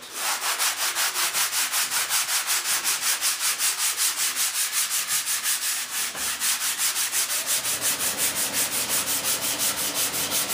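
Hand sanding with sandpaper, fast even back-and-forth strokes at about five a second, scuffing a hardened epoxy surface, with a brief pause about six seconds in.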